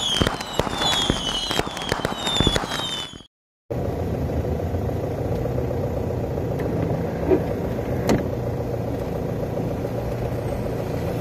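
Intro music with crackling, firework-like effects and short falling chimes, cut off about three seconds in. After a brief gap, the steady running noise of a car driving along a wet road: engine and tyre noise with a low rumble.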